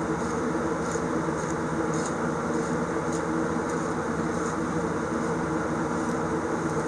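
Steady mechanical hum of a running machine with an even droning pitch, and a few faint light ticks.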